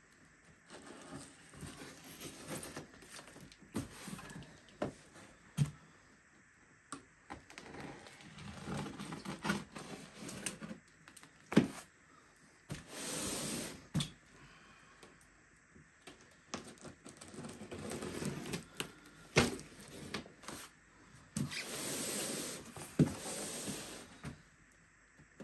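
Packaging being handled during an unboxing: scattered knocks and clicks, with two longer rustling, scraping swells, one about 13 seconds in and one near 22 seconds.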